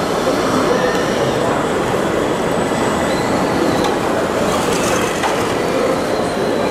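Steady, dense rumbling din of a large, busy indoor exhibition hall, with no single sound standing out.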